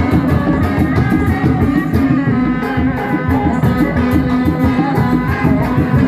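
Loud music of a kuda lumping troupe: fast, dense drumming under held melodic notes, with singing.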